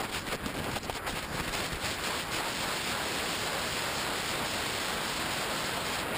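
Wind rushing over an RC airplane's onboard camera microphone as the plane dives toward the ground: a fluttering, buffeting hiss for about the first two seconds that then settles into a steady rushing hiss.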